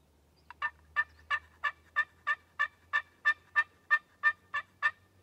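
Turkey yelping: a run of about fourteen loud, evenly spaced yelps, about three a second, starting about half a second in and stopping shortly before the end.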